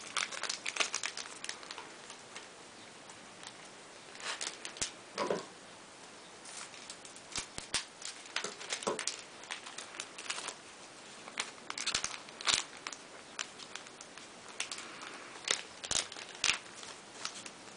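Yu-Gi-Oh booster-pack wrappers crinkling and tearing as packs are opened and the cards handled, in scattered short crackles and clicks.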